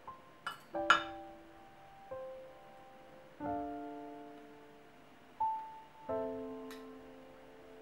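Soft piano music playing slow chords that ring and fade. A few sharp clinks of a metal fork against a glass baking dish cut through it, the loudest about a second in.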